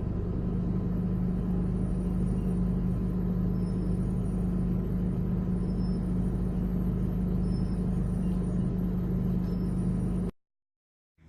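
Car engine running at a steady idle, with an even low hum that does not change, cutting off suddenly about ten seconds in.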